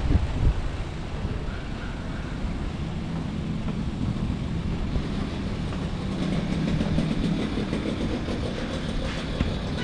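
A motor vehicle running: a steady low rumble of engine and road noise, with a drone that grows a little stronger through the middle.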